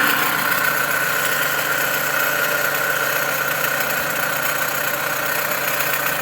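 Car engine idling with a steady high-pitched whine from the accessory belt drive. The mechanic traces this horrible racket to a failing alternator.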